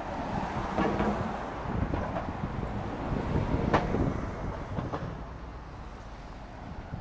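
Outdoor ambience: a low rumble of passing vehicles with wind on the microphone. A few sharp clicks sound over it, the loudest a little past the middle.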